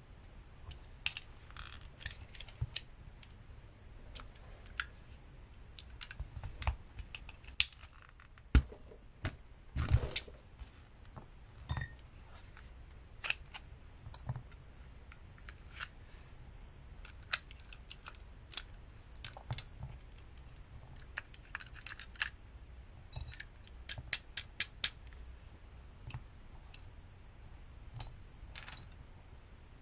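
Irregular small clicks, taps and knocks of an airsoft pistol's metal and plastic parts being handled and set down while the gun is taken apart, with a few louder knocks around eight and ten seconds in.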